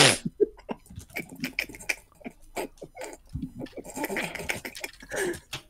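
Computer keyboard typing: irregular clicking keystrokes, with a brief non-speech voice sound about four seconds in.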